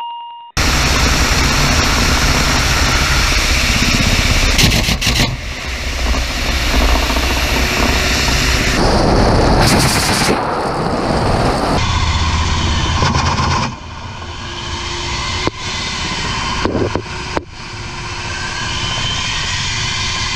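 Attack helicopter firing salvos of unguided rockets from its underwing pods: a loud, dense rushing roar with clusters of sharp cracks, over the helicopter's engines and rotor. It opens with a short electronic beep, and about two-thirds through drops to the quieter steady hum of the turbines and rotor heard from inside the cockpit.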